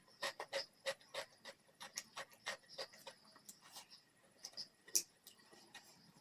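Close-miked chewing and wet mouth smacks from eating, a quick irregular run of sharp clicks, several a second, with a louder smack about five seconds in.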